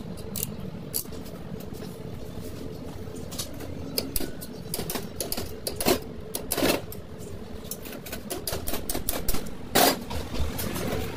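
A steel screwdriver tip clicking and scraping against the rim of a wheel bearing seated in a cast steering knuckle. It makes rapid, irregular sharp ticks, with a few louder scrapes about six seconds in and near the end.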